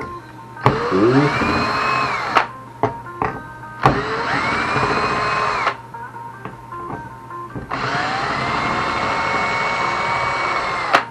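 Small electric power screwdriver run in three bursts, each whining up to speed and holding steady for one to three seconds, the longest near the end, as screws are backed out. Faint music plays in the gaps.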